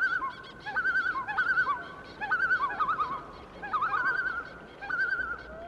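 Bird calls: a wavering, quavering call repeated in short phrases about once a second, with a rising note starting near the end.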